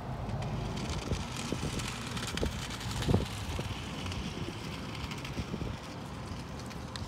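Small app-controlled Sphero Ollie robot driving across asphalt, its motors and wheels running, with scattered light knocks and a louder hiss for a few seconds in the middle. Wind rumbles on the microphone.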